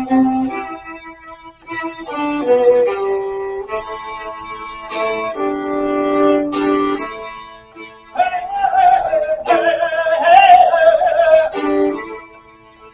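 Violin music: a violin plays sustained notes and short phrases over a backing accompaniment. About eight seconds in, a higher wavering melody line rises above it for a few seconds.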